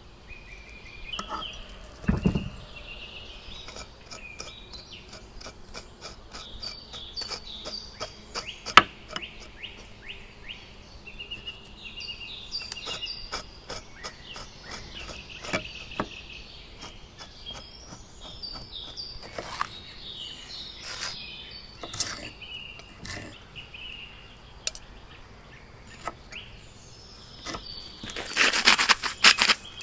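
Small birds chirping throughout, with sharp clicks and taps of a fork and knife on a wooden cutting board. Near the end, a brief loud patter of salt flakes being sprinkled onto the board.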